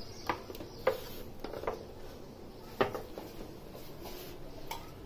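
Several short plastic clicks and knocks from an electric sandwich maker as its lid is closed and fastened, the loudest about three seconds in.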